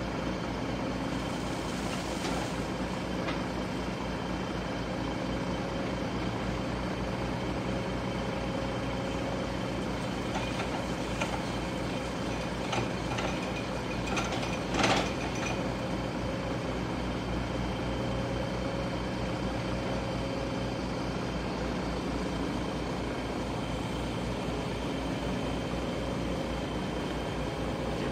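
Hydraulic excavator's diesel engine running steadily, with a few short metallic clanks, the loudest about halfway through.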